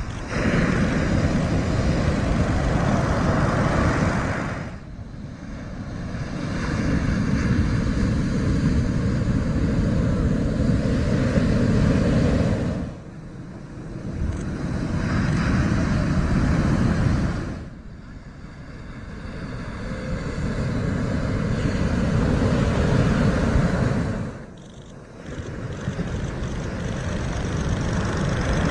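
Loud rushing roar of heavy shore-break waves crashing and whitewater churning. It swells and eases in long surges several seconds apart and drops away sharply a few times between them.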